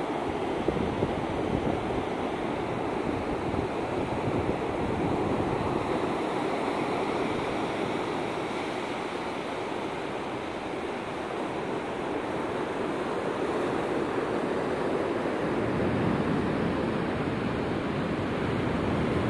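Ocean surf breaking on a sandy beach: a steady rush of waves that eases a little midway and builds again.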